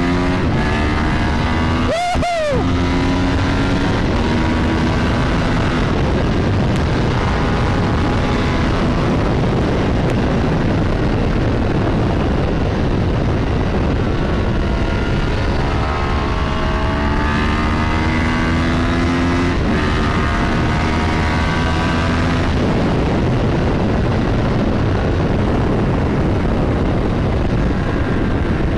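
Ducati 748 SP's 90-degree V-twin running through a 50mm Termignoni race exhaust while riding at speed, with wind rush on the microphone. There is a quick break in the engine note about two seconds in, like an upshift, and the engine pulls again with a rising note around sixteen to twenty seconds.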